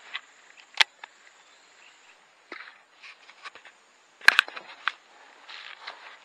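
Scattered crackles and knocks of someone moving over dry twigs and dead leaves, with a sharp knock just under a second in and the loudest about four seconds in, over a faint steady high hiss.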